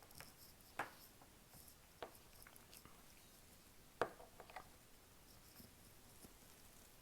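Faint, scattered clicks and taps of a small screwdriver pushing a crimped contact into a plastic Powerpole housing, the sharpest about four seconds in. The contact has not yet latched: its snap-in click is not heard.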